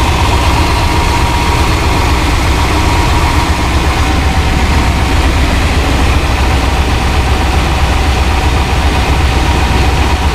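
Freshly rebuilt Gen VI 454 big-block Chevy V8 idling steadily on its first run, the break-in run to seat the new piston rings, heard close up under the open hood.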